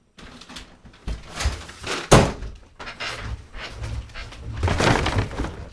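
A run of thuds and knocks mixed with rustling, the sharpest knock about two seconds in.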